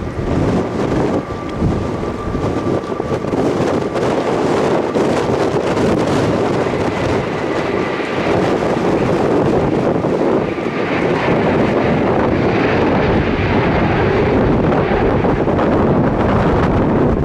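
Strong gusty wind buffeting the microphone, with the jet engines of an Airbus A320neo on landing approach underneath. The engine whine comes up about ten seconds in.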